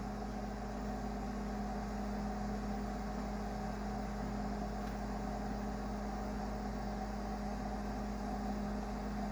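Microwave oven running with a steady hum, partway through its cooking cycle.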